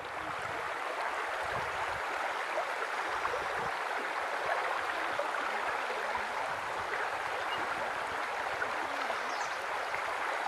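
Shallow river flowing over a stony riffle: a steady rush of water.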